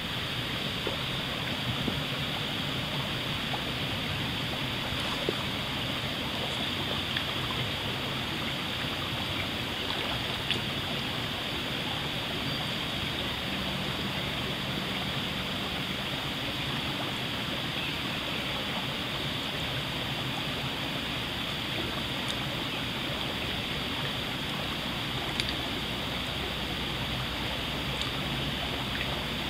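Shallow stream flowing with a steady, even rush of water, broken by a few faint ticks.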